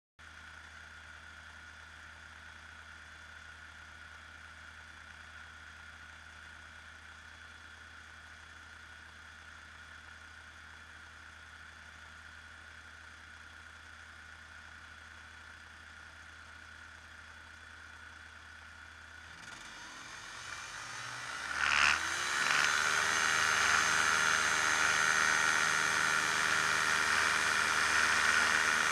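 The engine and propeller of a ski-equipped Challenger II ultralight idle steadily at low level. About two-thirds of the way through they are throttled up, rising in pitch with a brief louder peak, to a loud steady high-power run as the plane starts to move across the snow.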